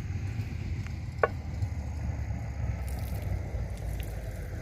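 Food sizzling as it fries in a kazan, over a steady low rumble, with a single sharp click about a second in.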